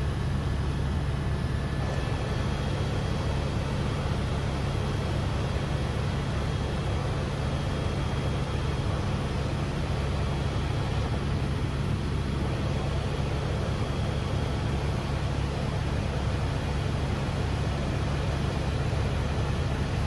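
Helicopter in flight: a steady, deep drone of engine and rotor noise, unchanging throughout.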